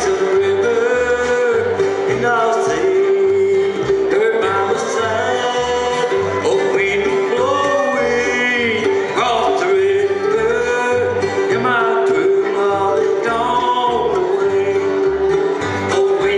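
Bluegrass band playing live: fiddle, acoustic guitars, banjo and mandolin over an upright bass keeping a steady pulsing beat.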